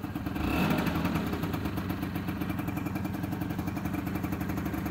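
Kymco Super 9 scooter's two-stroke air-cooled engine running just after starting up, now starting readily after long storage. Engine speed rises briefly about half a second in, then the engine settles to a steady idle.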